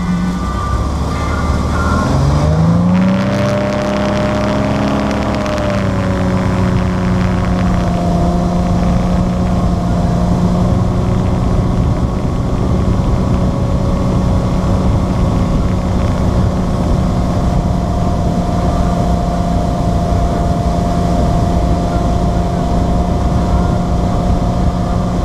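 Motorboat engine speeding up about two seconds in, its pitch rising, then running at a steady pitch as the boat cruises, over a constant rushing noise.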